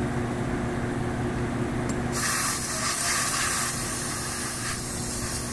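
Compressed air hissing through an air chuck into a forklift's split-rim tire as it is inflated toward 120 psi: a steady hiss that starts about two seconds in, over a steady low hum.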